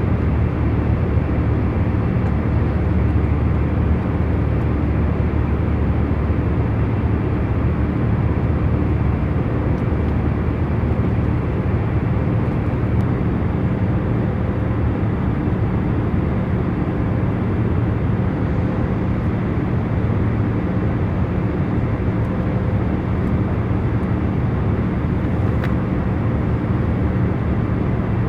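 Steady low drone of a jet airliner cruising, heard from inside the passenger cabin: engine and airflow noise with a faint constant hum, unchanging throughout.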